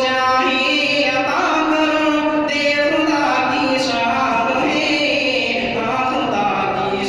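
A man's voice chanting a melodic recitation into a microphone, holding long notes that bend and waver in pitch.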